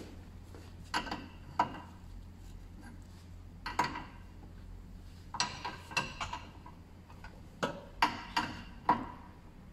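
Scattered metallic clicks and light knocks of a spanner working a braided oil cooler hose fitting as it is tightened, coming in small irregular clusters.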